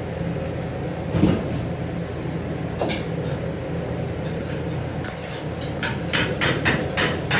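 Kitchen background: a steady low hum with a few sharp knocks, then a quick run of knocks, about three a second, over the last second and a half.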